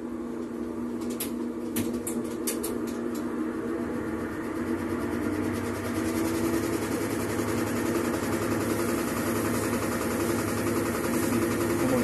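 Mabe stacked washer-dryer's washer in its spin cycle: a steady mechanical hum that grows slightly louder, with a few light clicks in the first three seconds. The noise comes from its drum bearings, which have lost their grease to water getting into them; the technician suspects worn suspension as well.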